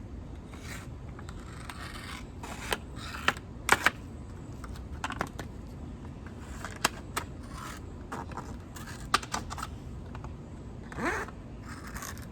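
A piece of thin plastic water-bottle being cut in two: a series of sharp snips and clicks with short scratchy crinkles between them.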